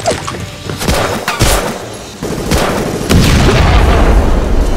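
Battle sound effects: scattered gunshots, then about three seconds in a loud explosion boom with a long low rumble, over background music.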